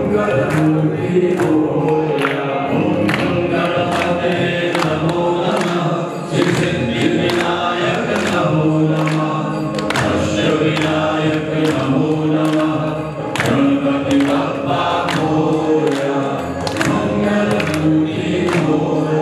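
Group of voices singing a Hindu devotional chant to Lord Ganesha in chorus, with steady rhythmic hand clapping about twice a second.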